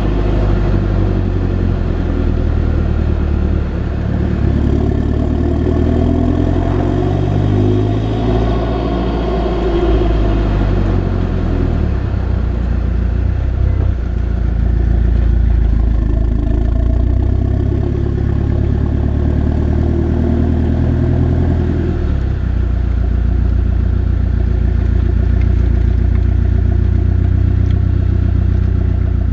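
Land Rover turbo-diesel engine with a stainless exhaust line, running and being revved. Its pitch rises and falls a few times in the first dozen seconds, then it settles to a steadier run.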